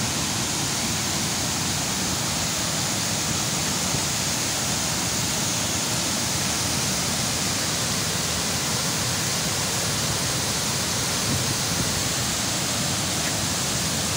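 Waterfall: water pouring down a rock face and crashing at its foot, a steady, unbroken rushing noise.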